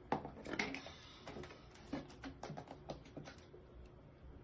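Light, irregular clicks and taps of small plastic items being handled at a bathroom sink, a toothbrush holder and cap and a plastic water bottle. A cluster of clicks in the first second, then scattered single taps.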